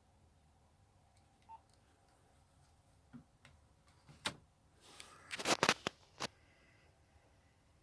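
Scattered clicks, then a quick cluster of louder clicks and rustling about five to six seconds in: a Nokia 3210 mobile phone being handled and its keys pressed.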